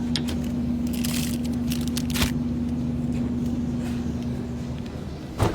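Supermarket background noise: a steady electrical hum that stops near the end, under low rumble, scattered rustling and clicks, and a single sharp thump just before the end.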